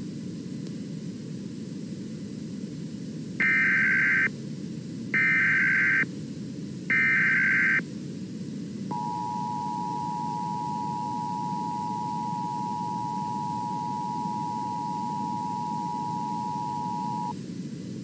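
Emergency Alert System broadcast: three SAME header data bursts, each a loud buzzy screech about a second long with a second's gap between, encoding a Child Abduction Emergency alert. They are followed by the EAS two-tone attention signal (853 and 960 Hz together), held steady for about eight seconds, over constant background noise.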